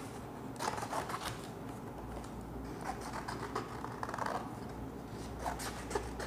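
Scissors cutting through a sheet of white chart paper: irregular snips with the paper rustling as it is turned and handled.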